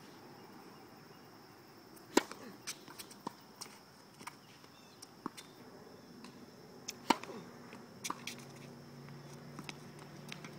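Tennis ball struck by rackets in a rally: two sharp racket hits, the loudest about two seconds in and about seven seconds in, with lighter knocks scattered between and after.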